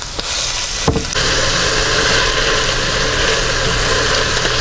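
Diced vegetables sizzling in olive oil in a stainless steel pot while being stirred with a spatula: a single knock just under a second in, then a steady, dense sizzle with a low hum under it.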